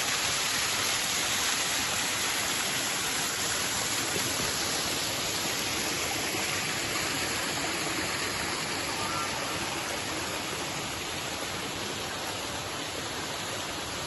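Small waterfall pouring down a rock face and splashing into a pool: a steady rush of falling water that fades a little over the last few seconds.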